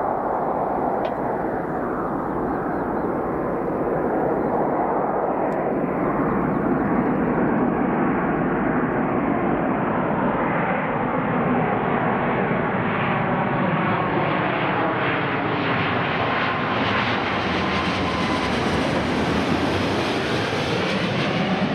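Boeing 777-300 jet airliner on final approach with gear down, its engines a steady roar that grows louder and brighter as it comes overhead. Near the end, whining engine tones slide down in pitch as it passes.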